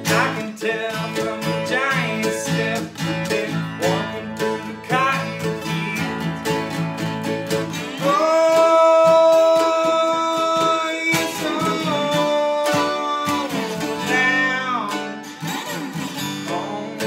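Acoustic guitar and mandolin playing together, with a man singing over them; about eight seconds in he holds one long note for some three seconds, the loudest part.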